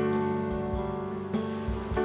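Background music: acoustic guitar playing, with notes struck and left ringing.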